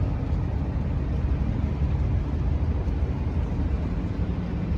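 Steady low rumble of engine and road noise inside the cabin of a vehicle driving along a town street.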